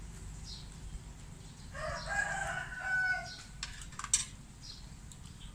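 A rooster crowing once, starting about two seconds in and lasting about a second and a half, followed by a few sharp clicks about four seconds in.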